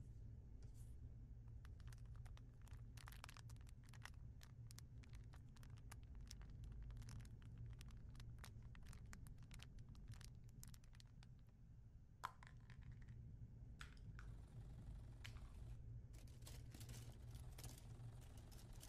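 Faint scratching and rustling of hand sewing: a needle and thread drawn through lining and cloth while felling a lining edge, in many small irregular scratches over a low steady hum. One sharper click stands out a little after the middle.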